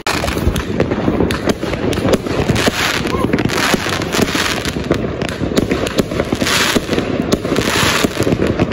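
Fireworks going off: a dense, continuous crackle of many small bangs and pops, with a few louder hissing swells, two of them near the end.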